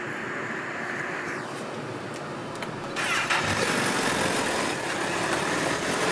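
Steady engine noise, then a vehicle engine starts about three seconds in and keeps running, noticeably louder.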